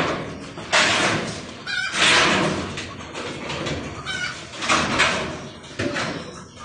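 Corrugated roofing sheet scraping and grating as it is shifted by hand against the roof frame, in a run of loud rasping surges about one a second.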